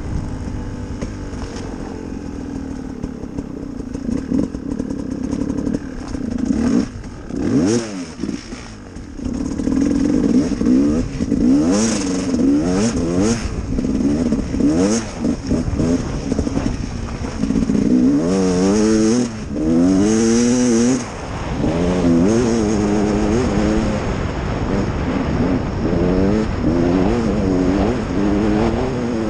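Gas Gas EC 300R two-stroke enduro motorcycle engine under way, running fairly steadily at first. From about six seconds in it revs up and down over and over as the bike is ridden over rough ground.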